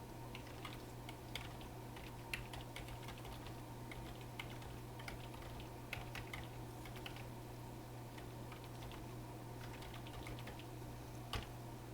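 Typing on a computer keyboard: quick runs of key clicks for the first seven seconds or so, then sparser, with one louder click near the end, over a steady low hum.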